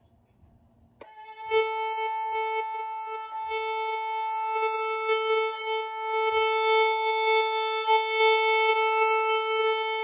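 Violin bowed on the open A string, one long, steady note that starts about a second in and holds to the end.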